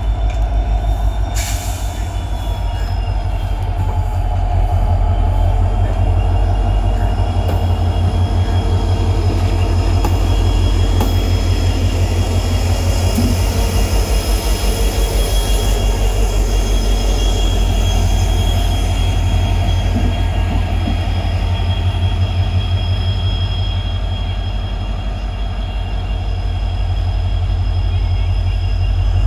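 WDP4D diesel locomotive with its EMD two-stroke engine running at low speed while moving a rake of ICF coaches, giving a deep pulsing throb. Over it the coach wheels squeal on the rails in thin, wavering high tones. There is a single sharp clank about a second and a half in.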